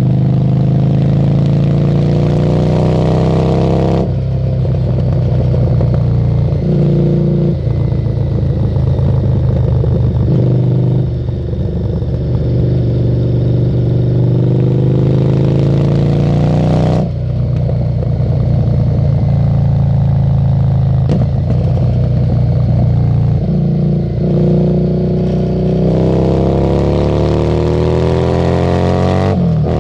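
Harley-Davidson Street 750's V-twin running through a Screamin' Eagle exhaust while riding, pulling up through the gears: the engine note climbs, then drops sharply at each upshift, about four seconds in, again around seventeen seconds, and once more at the very end.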